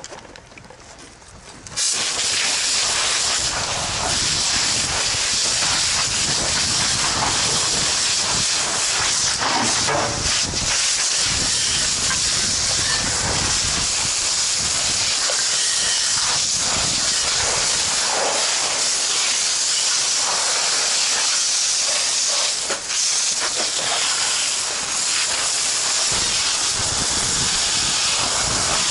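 Fire hose nozzle opening about two seconds in and spraying a water jet onto burning shed debris, a steady loud hiss of spray and steam that dips briefly once near the end.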